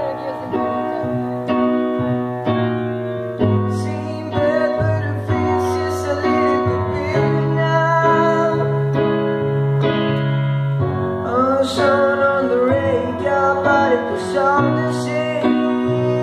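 Piano chords played at a slow pace, with a voice singing into a microphone over them; the singing comes in about four seconds in and is strongest in the second half.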